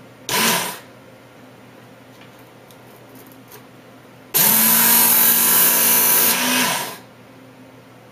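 Work Sharp Knife & Tool Sharpener's electric belt motor: a brief half-second run, then a few seconds later a run of about two and a half seconds, a steady motor tone with the hiss of the coarse red abrasive belt grinding a dull steel knife blade drawn through the guide, starting sharply and winding down at the end.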